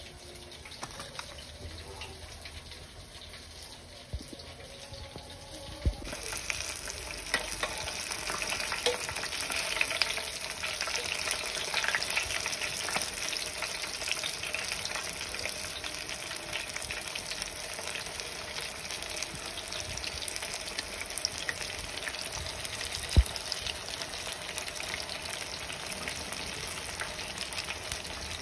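Breaded pork fillets deep-frying in a pan of hot oil: a dense crackling sizzle, fainter for the first few seconds and fuller from about six seconds in. A single sharp knock comes about three quarters of the way through.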